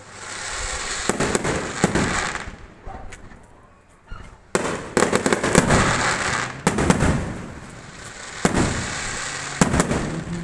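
Fireworks going off: sharp bangs and pops one after another, each trailing off into crackle and a smeared echo, with a denser volley from about halfway through.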